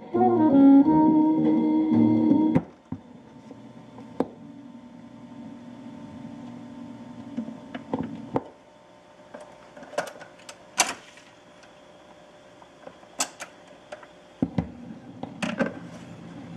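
Music playing through the speakers of a 1958 Columbia 360 portable phonograph stops about two and a half seconds in. The VM record changer mechanism then cycles, with a low motor hum and a series of separate clicks and clunks, the loudest a little past the middle.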